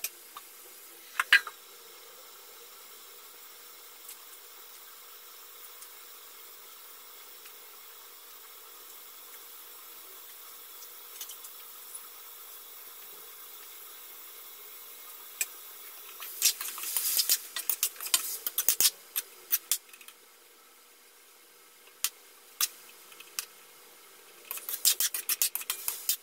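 A metal spatula scraping and knocking against an aluminium wok as pieces of chicken are stirred, in two spells of quick clicks and scrapes in the second half. Before that, a glass lid clinks down once on the wok, followed by a steady soft hiss from the covered pan cooking on the gas burner.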